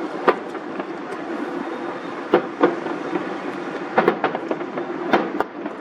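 Fireworks going off: several sharp bangs at irregular intervals, some in quick pairs, over a steady rumbling din.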